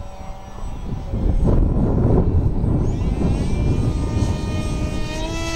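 Depron profile Eurofighter parkjet RC plane in flight, its motor and propeller making a whine that gets louder about a second in and rises in pitch near the end as it speeds up or comes closer. Wind buffets the microphone underneath.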